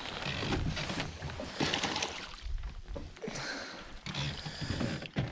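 Water lapping and sloshing against an aluminum boat's hull, with a few short knocks and clatters.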